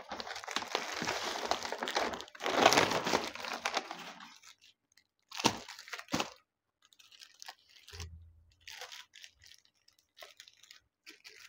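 Crinkling and rustling of a paper mailer bag and plastic-wrapped saree packets being pulled out and handled. The crinkling is dense for the first few seconds, then come two short sharp crackles near the middle, then faint light rustles as the packets are set down.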